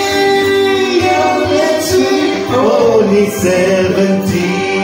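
Karaoke: a song's backing track plays with singing over it, through a microphone and loudspeaker, with long held notes and a wavering phrase in the middle.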